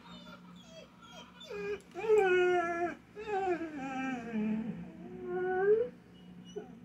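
Dog whining in a few short whimpers, then giving three long howls, the middle one sliding down in pitch and the last one rising: separation howling while its owner is away.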